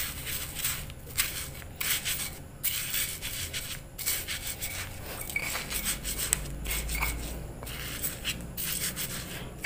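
Stone pestle grinding on a stone mortar (ulekan on cobek), crushing wafer sticks into a soft, damp turmeric paste: repeated gritty rubbing strokes of stone on stone, uneven in pace.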